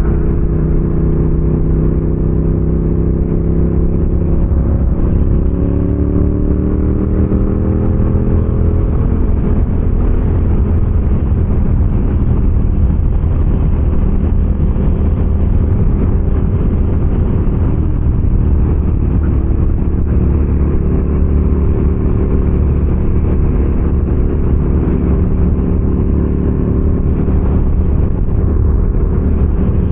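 Motorcycle engine under way, with heavy wind noise. The engine pitch climbs over the first several seconds as it accelerates, then holds steady at cruising speed.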